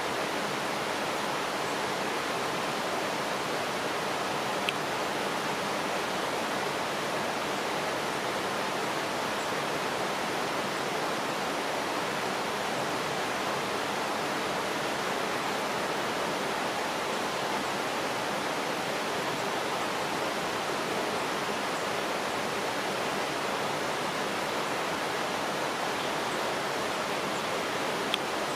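Steady, even rushing noise that does not change, with two faint short clicks, one about five seconds in and one near the end.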